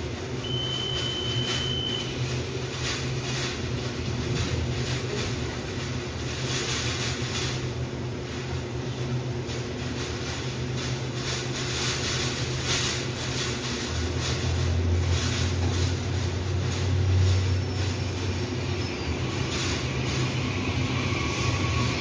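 Taiwan Railway electric multiple-unit commuter train standing at the platform with a steady electrical hum, and a short high beep about half a second in as its doors close. From about two-thirds through, a deeper drone builds and a faint rising whine starts near the end as the train begins to pull away.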